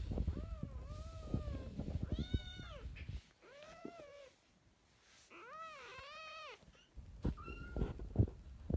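Young kittens mewing: several short, high mews, each rising and falling in pitch. Under them, rustling and knocks from close handling, loudest near the start and again near the end.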